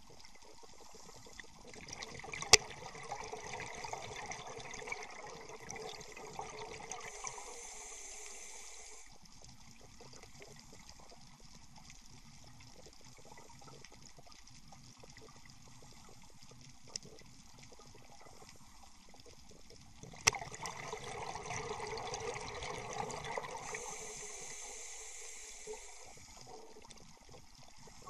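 Scuba regulator exhaust bubbles heard underwater: two long spells of bubbling about 18 seconds apart, each starting with a sharp click, with a quiet hiss of water between them.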